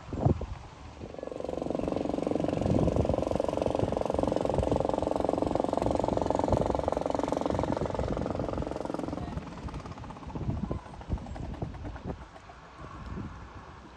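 Boat engine running as a cruiser passes close by, a steady pitched drone that swells from about a second in and fades away after about nine seconds.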